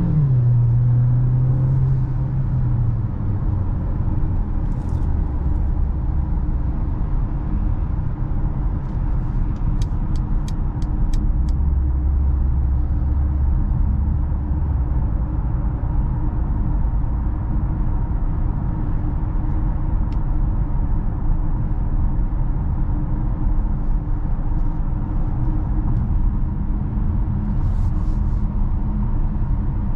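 Mercedes-Benz GLA's 1.3-litre turbocharged four-cylinder engine pulling and shifting up at the start, its pitch dropping, then cruising with a steady low drone and road noise. A brief run of faint ticks comes about ten seconds in.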